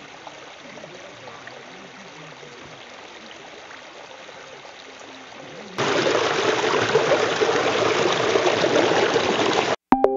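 Stream water running over rocks, soft at first, then much louder and closer about six seconds in as it spills over mossy boulders in a small cascade. It cuts off near the end, and electronic keyboard music starts.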